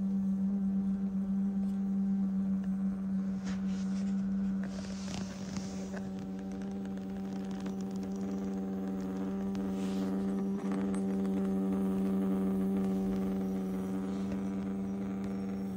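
Tosuny 12 V DC water-cooling pump running, a steady hum with a stack of overtones. It sits on the floor rather than mounted in a PC, which makes it noisier.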